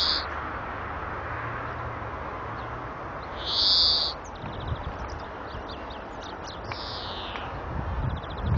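European greenfinch singing: a long buzzy wheeze about three and a half seconds in, a run of short twittering notes, then a falling buzzy note near the end, over a steady background hiss.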